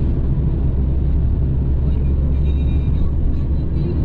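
Steady low rumble of a shared taxi's engine and tyres on the road, heard from inside the moving car's cabin.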